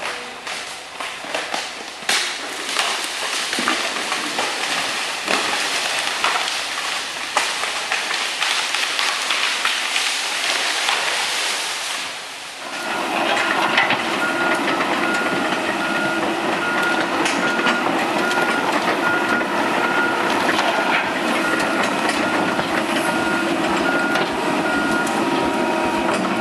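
Chainsaw cutting into a large tree trunk, a loud noisy whine with crackling. About halfway through it gives way to a heavy machine's engine running with a reversing alarm beeping steadily.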